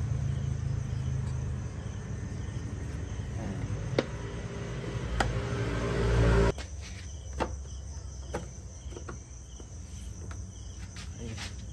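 Crickets chirping steadily, with a low hum that cuts off suddenly a little past halfway. Several sharp clicks sound as a plastic side-mirror cover is pressed back into place.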